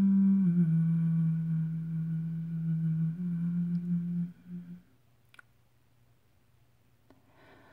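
A woman humming long, steady notes with closed lips, the pitch stepping down once and then back up, trailing off a little over four seconds in. After that it is near silence, with a faint click and a soft breath near the end.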